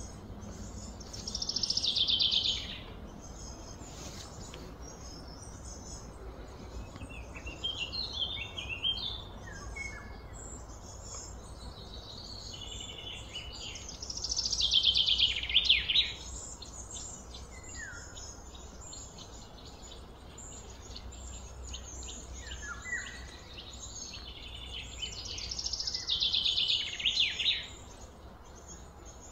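Birds singing in the open air: a loud, high trilled song phrase three times, about twelve seconds apart, with shorter chirps between, over a steady low background hum.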